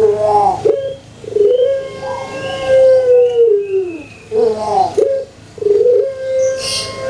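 Puter pelung, the long-cooing Javanese strain of Barbary dove (Streptopelia risoria), cooing twice: each call opens with a few short bubbling notes that bend up and down, then one long, steady coo of about three seconds that falls off at the end.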